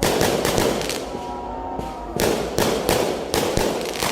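Fireworks going off: a quick cluster of sharp bangs at the start and another run of bangs from about two seconds in, with crackling between them.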